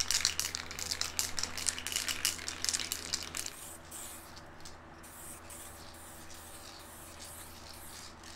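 SprayMax 2K aerosol paint can spraying base coat in quick, repeated hissing bursts. It is louder for the first three and a half seconds, then fainter as the spraying moves to farther pieces.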